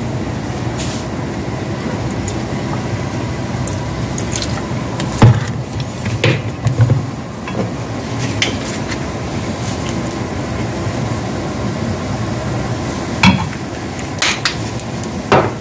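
Cooking wine poured into a wok of chicken at the start, then a wooden spoon stirring and scraping the chicken and chili paste, with several sharp knocks against the pan about five to seven seconds in and again near the end, over a steady low hiss.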